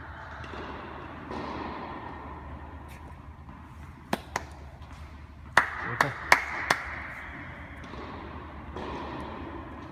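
Tennis balls striking racket and court: two sharp hits about four seconds in, then four louder ones in quick succession around six seconds, ringing in the indoor hall over a low murmur of voices.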